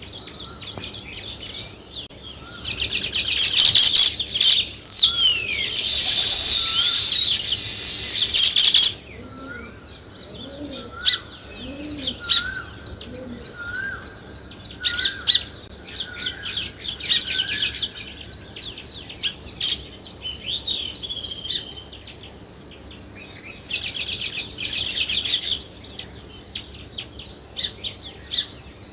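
Small songbirds chirping and chattering. A loud, dense burst of chatter lasts about six seconds, and a shorter one comes later. In between are scattered single chirps and a run of short repeated notes.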